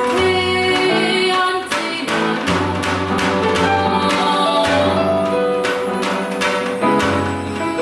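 Live music from piano and electronic sounds with percussion striking a steady beat and a female voice singing.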